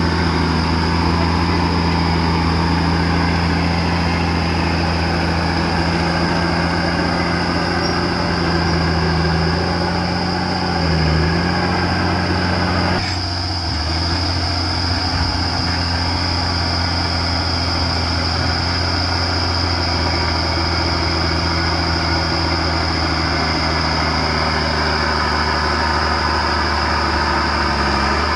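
Komatsu D50A crawler bulldozer's diesel engine running steadily while the dozer pushes material, with a steady high whine over the engine note. The engine note dips briefly about eleven seconds in and changes abruptly soon after.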